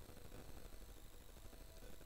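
Faint room tone: a low, steady rumble under a light hiss, with no distinct event.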